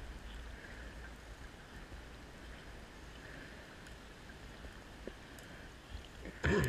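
Steady underwater rumble and hiss picked up through a camera's underwater housing, with a short, louder burst near the end.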